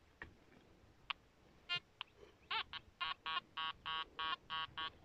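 Nokta Anfibio Multi metal detector beeping in short pitched tones, a few single beeps and then a quick run of about eight in the second half, some bending in pitch. This is the detector's target response to metal in the dug hole under the search coil.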